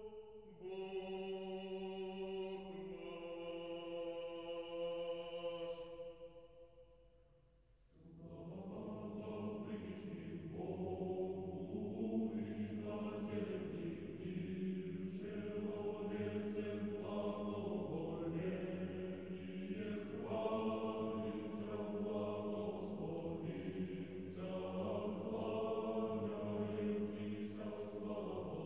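Choir chanting Orthodox liturgical music in slow, held chords. The chord fades away about seven seconds in, and the singing starts again a second later with a new phrase that moves more often from note to note.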